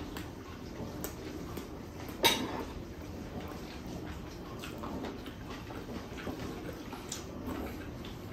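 Quiet eating sounds from a person eating rice and adobo with his fingers: soft chewing and small mouth and finger clicks, with one sharper clink about two seconds in.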